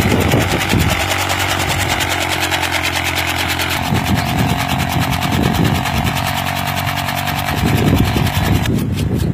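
A 70 cc motorcycle engine running steadily under load as it drives a chaff cutter, whose blades chop green fodder in a fast, even rhythm. The note shifts about four seconds in and falls away just before the end.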